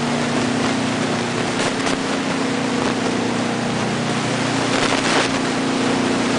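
Half-horsepower sump pumps running with a steady hum and hiss, pumping out seepage water that has leaked through the flood barrier. A brief louder rush of noise comes about five seconds in.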